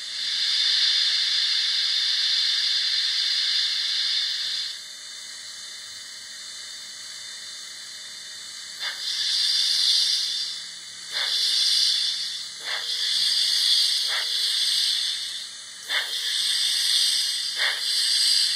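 HO scale model steam locomotive's sound system blowing off steam. There is a steady hiss for the first few seconds, and then, after a quieter stretch, repeated bursts of hiss, each starting with a sharp click.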